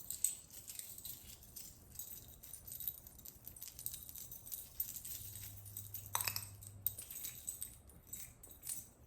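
Small metal chain rattling and clicking as a door security chain is slid and fastened, with a louder clack about six seconds in.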